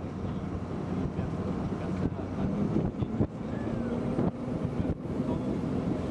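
Rigid inflatable boat under way at speed: its engine runs with a steady low drone and wind rushes over the microphone. The hull knocks on the waves now and then.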